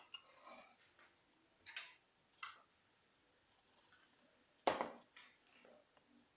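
Spoon scraping and tapping on the metal coffee basket of a moka pot as it is filled with ground coffee: a few short scrapes and clicks, the loudest about two thirds through.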